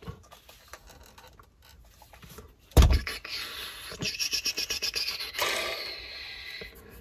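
A single heavy thump, then a few seconds of hard plastic LEGO parts rubbing and rasping, with a fast run of small clicks in the middle, as the built seaplane model is handled.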